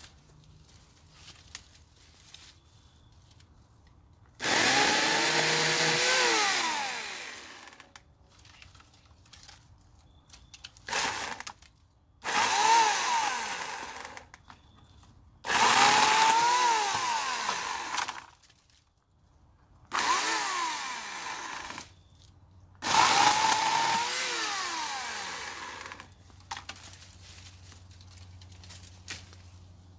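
Portland 14-inch electric chainsaw with a 9-amp motor, run in six bursts of a few seconds each. One burst near the middle is very short. The motor's pitch falls through each burst.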